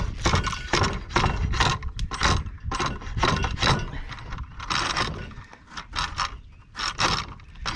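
Homemade drawknife, its blade cut from a lawnmower blade, shaving wood off an old rake handle in quick short strokes, about two or three scrapes a second, with a brief pause a little after five seconds in.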